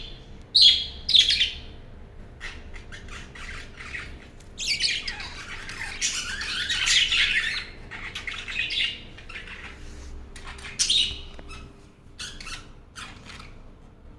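A flock of budgerigars chattering and squawking together in a travel cage. Sharp loud squawks come at the start and again about 11 seconds in, with a dense burst of overlapping chatter in the middle, thinning to scattered calls near the end.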